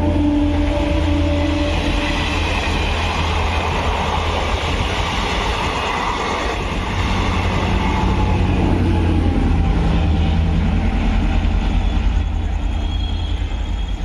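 A diesel-electric multiple unit (DEMU) passing close by. The end of its horn fades out in the first couple of seconds, then comes the steady heavy rumble of its coaches running past on the rails.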